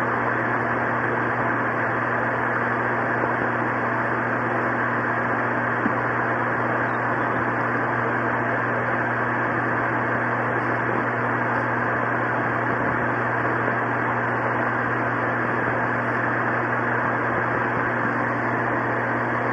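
Steady, even hiss with a low hum underneath.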